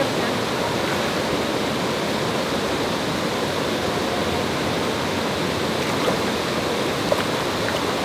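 Waterfall rushing steadily: a continuous, even wash of falling water.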